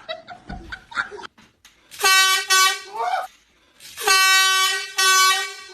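Air horn blasting twice: a loud, steady blare starting about two seconds in and lasting about a second, then a longer one about four seconds in, each briefly broken midway.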